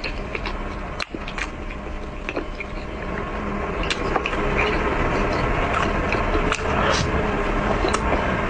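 Close-up chewing of a soft, cream-filled snow-skin mochi (xuemeiniang), with scattered wet mouth clicks and smacks over a steady background hiss and hum.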